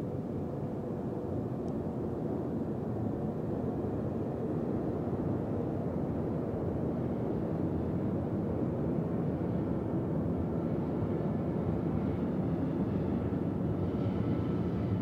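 Boeing 737-800's CFM56-7B jet engines in flight, a steady low rumble that grows slightly louder, with a faint engine whine coming in near the end.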